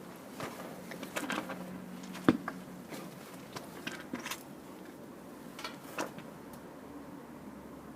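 Hands working with tools and parts: scattered clicks, rattles and knocks, with one sharp knock a little over two seconds in and a faint low hum during the first few seconds.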